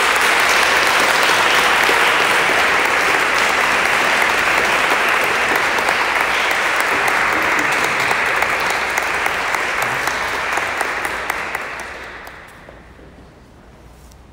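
Audience applauding, steady and then dying away about twelve seconds in.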